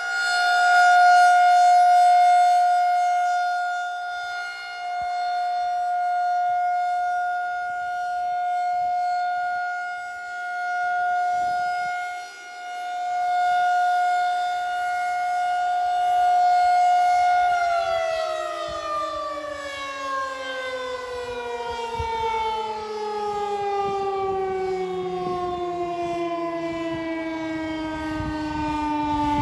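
Federal Signal 2001-SRN "Roundback" rotating outdoor warning siren sounding a steady, single tone that swells and fades as the siren head turns. About eighteen seconds in, the pitch starts to fall slowly and steadily as the siren winds down.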